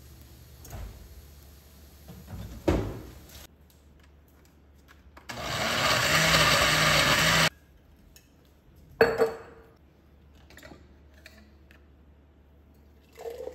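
Glass-jar countertop blender running for about two seconds while it purées cooked tomatoes, then cutting off abruptly. A few sharp knocks come before and after it.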